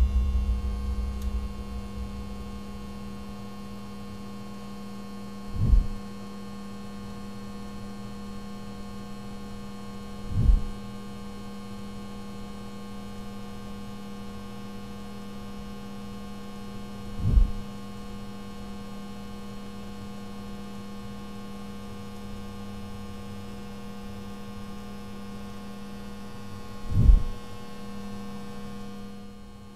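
A steady electrical hum, broken by four short, deep thumps spaced several seconds apart. A low rumble fades out in the first couple of seconds.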